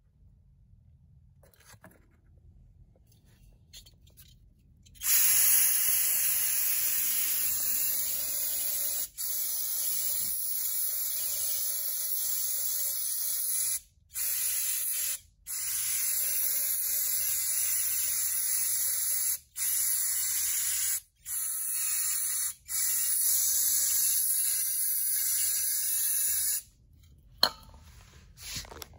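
Aerosol cleaner sprayed from a can onto a carbon-fouled tractor EGR valve, a long loud hiss starting about five seconds in. It pauses briefly about six times and stops near the end, followed by a single sharp click.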